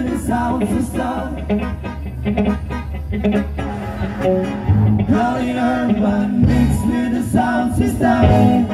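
A live reggae band playing: a man singing into a microphone over electric guitar and a steady bass line.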